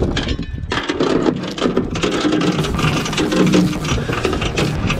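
Galvanised anchor chain rattling out over the bow of a small boat as the anchor is dropped: a fast, continuous run of metal clanks and clinks.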